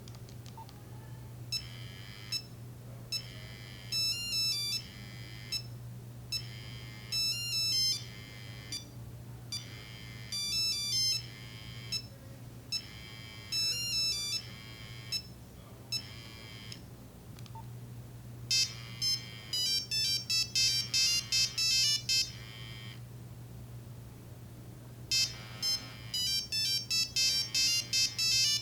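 Nokia 3395 mobile phone playing monophonic ringtones through its small speaker, one beepy note at a time. A short tune repeats about every three seconds, then a different, quicker ringtone starts about two-thirds in, and another near the end.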